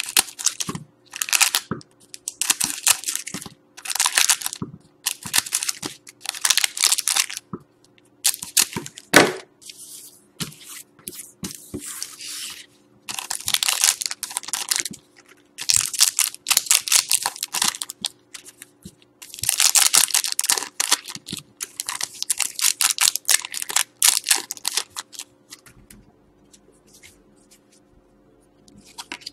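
Scissors snipping and the foil wrappers of Panini Certified hockey card packs crinkling and tearing as the packs are cut and pulled open, in a run of short rustling bursts. It goes quieter for the last few seconds as the cards are handled.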